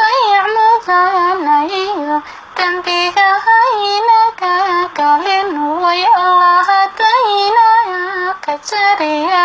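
A high voice singing a solo melody, its notes bending and wavering in ornamented turns, in short phrases.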